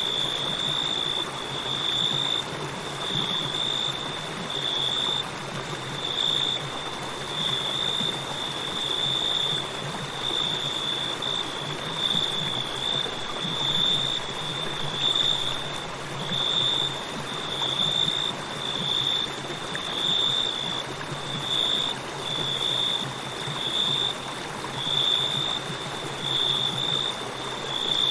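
River water flowing steadily, with crickets chirping in a high trill that pulses about once a second.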